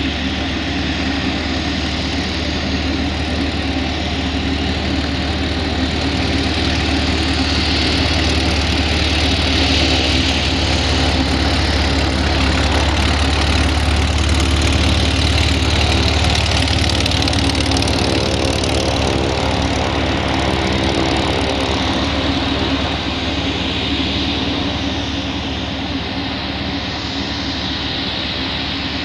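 Van's RV-7's piston aircraft engine and propeller running steadily at low taxi power. It grows louder as the plane passes close and then eases off as it moves away.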